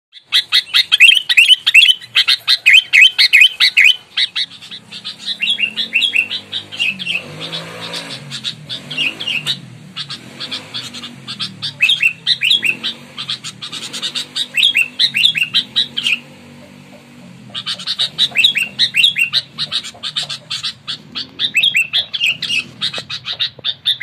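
Sooty-headed bulbul (kutilang) calling in rapid runs of short, sharp chirps, with a brief pause a little past the middle.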